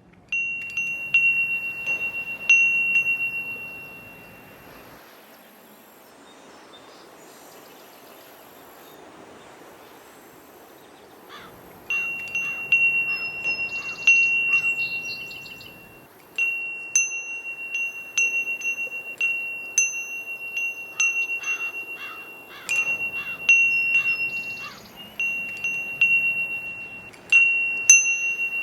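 Metal bell chime ringing one clear high note, its clapper striking the bell again and again so that each ring overlaps the last. It rings in two spells, falling quiet for several seconds in between.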